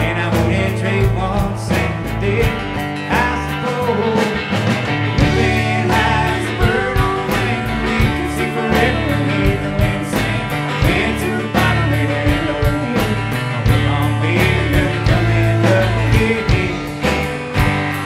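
Live band playing a country-rock song, with strummed acoustic guitar, upright bass and electric guitar over a steady beat.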